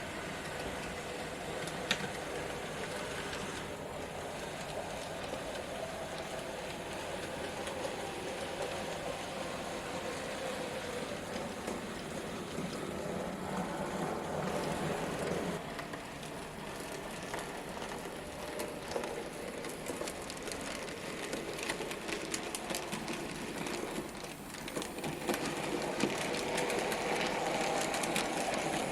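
N gauge model trains running round the layout: a steady motor whir with wheels clicking over the rail joints, the clicks growing busier in the second half.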